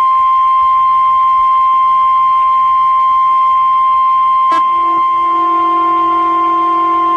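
Steady NOAA Weather Radio-style 1050 Hz alert tone, the warning alarm that precedes a weather alert. About four and a half seconds in, a second, lower tone with overtones joins it.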